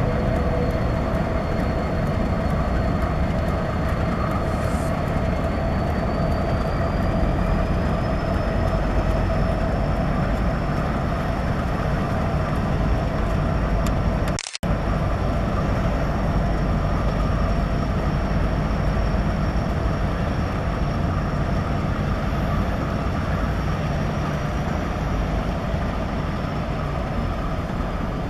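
Multi-unit diesel-electric freight locomotive consist running steadily as the train rolls slowly past, a continuous rumble with a faint high whine. About halfway through the sound cuts out for a moment with a click as the videocamera takes a still shot.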